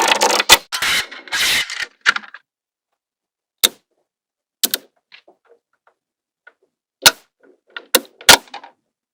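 Small magnetic balls clacking as they snap together: a rapid rattling clatter for the first two seconds, then about five single sharp clicks spaced a second or so apart.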